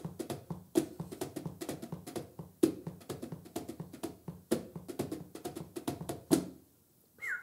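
Fingers drumming a quick, uneven run of taps on stacked, unplugged electronic drum pads, stopping near the end.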